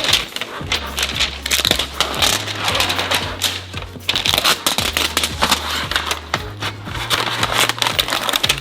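Background music with a steady bassline, over dense crackling and crinkling of plastic toy packaging being torn open.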